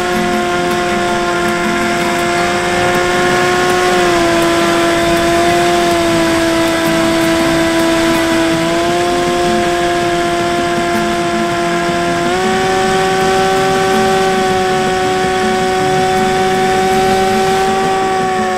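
Electric motor and propeller of a Bixler 3 RC plane whining steadily in flight, recorded onboard with air rushing past. The pitch drops a little about four seconds in and again about nine seconds in, then rises about twelve seconds in as the motor speed changes with the throttle.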